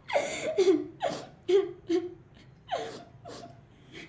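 A young woman laughing softly in several short, breathy bursts, mixed with a few spoken words.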